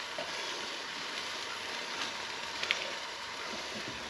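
Peameal bacon sizzling in a frying pan: a steady hiss with a few faint clicks and pops, one a little louder about two and a half seconds in.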